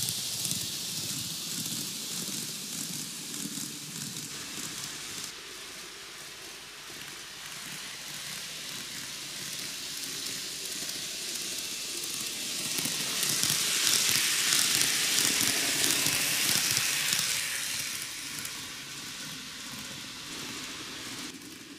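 N-gauge model train (TOMIX 733 series 3000 EMU) running on plastic-based track: a steady, hissy rattle of its small metal wheels on the rails. It swells a little past the middle and fades toward the end.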